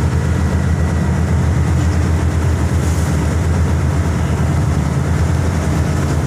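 Ship's machinery running with a steady, loud low drone.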